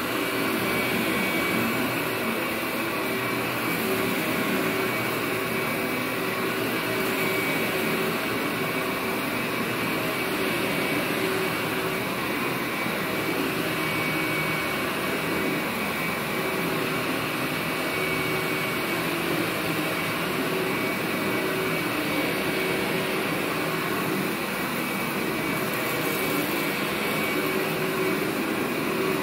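Workhorse upright vacuum cleaner running steadily as it is pushed back and forth over carpet: a constant rush of air with a steady motor whine.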